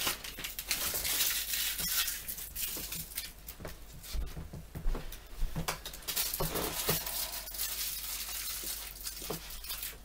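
Hands handling a freshly assembled plastic floor fan: irregular rustling with many small clicks and knocks, over a steady low hum.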